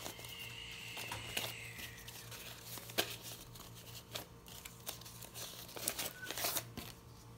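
Paper banknotes (Brazilian R$5 notes) rustling and crinkling as they are handled and sorted by hand, with scattered crisp snaps of paper.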